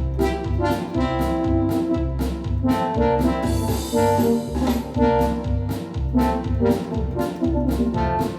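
Music from a Yamaha DX7 FM synthesizer: a pitched patch playing notes and chords over a pulsing bass line and a steady beat of about two strikes a second, with a cymbal-like wash about three and a half seconds in.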